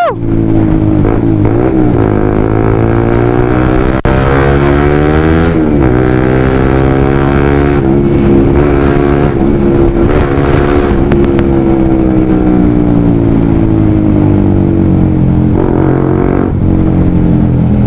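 Honda CBR150R's single-cylinder engine through a Yoshimura Alpha carbon full-system open exhaust with the dB killer removed, under way. The engine note rises and falls with throttle and gear changes, then holds fairly steady and slowly drops in pitch.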